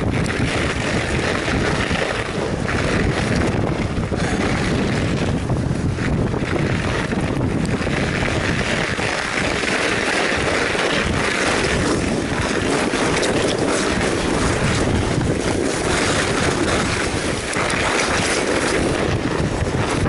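Wind buffeting the microphone of a handlebar-mounted camera on a moving fat bike: a loud, continuous rushing noise, mixed with the rolling noise of wide tyres on packed snow.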